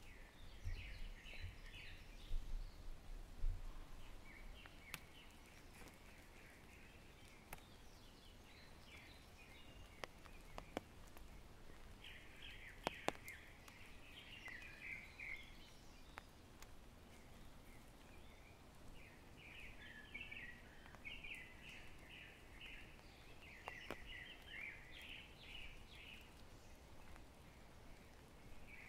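Songbirds calling in a forest: short chattering phrases repeated in bouts with gaps between them, over a faint background with scattered sharp ticks. A few soft low thumps in the first seconds.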